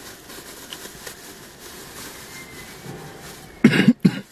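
Quiet car-cabin background, then a short, loud burst of a woman's laughter near the end, in two quick parts.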